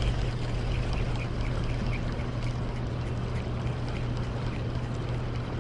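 Steady rush of river water flowing out below a hydroelectric dam, with a constant low rumble underneath.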